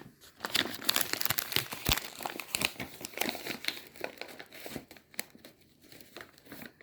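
A snack bag crinkling as it is handled, busy at first and thinning out toward the end.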